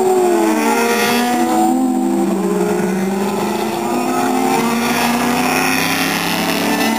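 Race car engines running at full speed past the track, one engine note dropping in pitch in the first second or so as a car pulls away, then other engines running at a steadier pitch.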